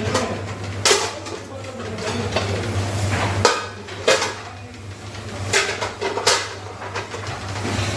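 Dishes and cutlery clattering as they are handled during washing-up, a handful of sharp knocks and clinks. A steady low hum runs under them, stops about halfway and comes back near the end.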